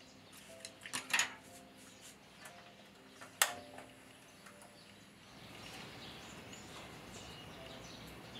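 Gas stove burner clicked on under a stone pot of soft tofu stew: sharp igniter clicks about a second in and again at about three and a half seconds. From about five seconds, a soft steady hiss with small pops as the low flame heats the stew and it begins to simmer.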